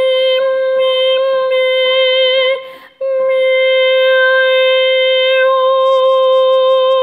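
A classically trained soprano sings a vocal exercise, holding one steady high note in head voice with added resonance. She holds it until about two and a half seconds in, breaks off briefly for a breath, then holds the same note again for about four seconds.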